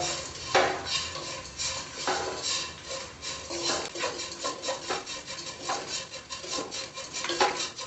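A spatula scrapes and stirs dry grated coconut and spices across a granite-coated kadai in quick, repeated strokes, as the coconut fries on a medium flame until it browns.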